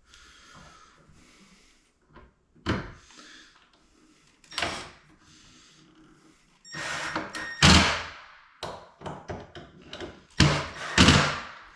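Vanity cabinet door and its new handle being worked: a string of wooden knocks, clicks and thuds, single ones about three and five seconds in, then a busier run of clicks with the loudest knocks near the end.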